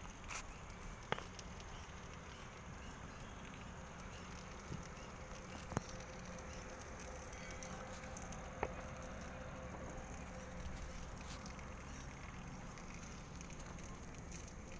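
Steady low outdoor background noise with three faint, sharp pops spread through it, and a faint steady tone in the middle stretch.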